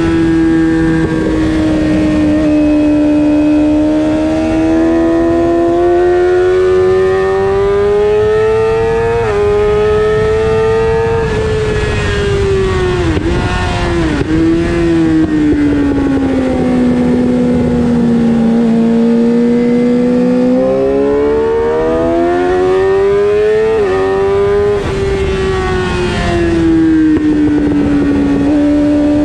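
Suzuki GSX-R600 inline-four racing engine at high revs, with wind rush over the fairing. The engine note climbs, dips twice quickly in the middle, sinks for a slower stretch, then climbs again, with sharp steps at gear changes about nine seconds in and again near the end.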